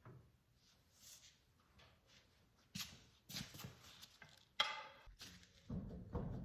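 A few sharp knocks and clicks of work starting on the truck's front wheel, then a denser low thudding near the end.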